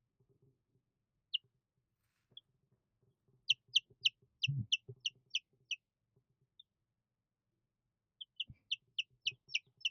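Two-day-old olive egger chicks peeping: short, high cheeps that drop in pitch, coming in two quick runs of about four a second, with a couple of soft thumps among them.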